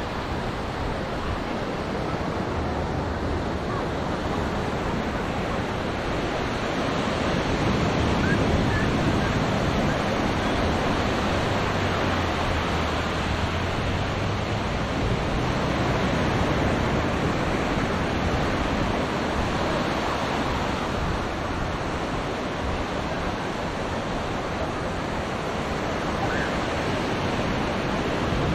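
Surf washing onto a sandy beach: a continuous wash of small breaking waves that swells and eases.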